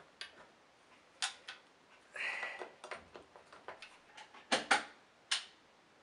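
Clicks and knocks of a 1950s Vactric W404 cylinder vacuum cleaner being handled as its hose is fitted, with a short scrape about two seconds in and the loudest knocks near the end.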